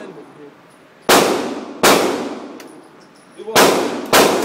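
Four loud gunshots in two pairs, each echoing and fading off in the hard-walled indoor firing range.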